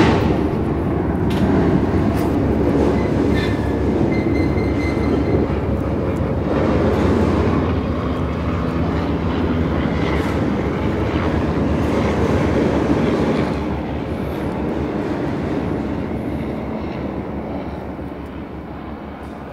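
Loud, steady rumble of a large vehicle running close by. It eases off about two-thirds of the way through and fades toward the end.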